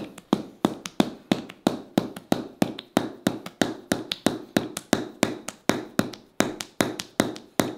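A mallet tapping a wooden chisel held against the body in traditional Thai bodywork, in a steady run of sharp wooden knocks at about three a second.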